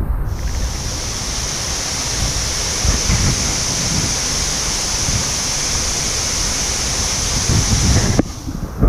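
Steady rushing noise with low wind buffeting on the microphone, cutting off abruptly near the end.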